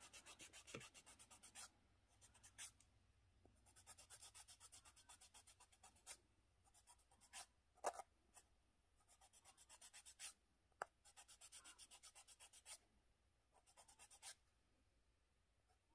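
Faint rasping of a wooden emery-board nail file worked in quick short strokes, several a second, against the side wall of a dry fingernail, filing away hardened callus. The strokes come in runs with short pauses between, and a few single louder scrapes.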